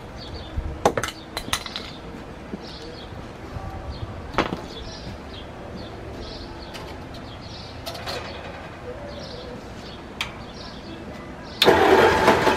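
Ford flathead V8 engine being cranked over by its starter in an attempt to start it: a few clicks and knocks, then near the end a loud burst of about a second and a half as it turns over.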